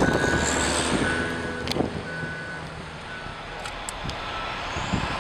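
Wheel loader's backup alarm beeping about once a second over its diesel engine running. The beeps stop after about two seconds and the engine sound fades.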